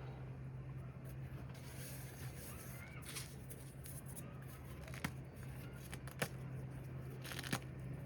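Reformed cornstarch slab being pressed and crumbled by hand, giving a few sharp crunches with faint squeaks between them, over a steady low hum.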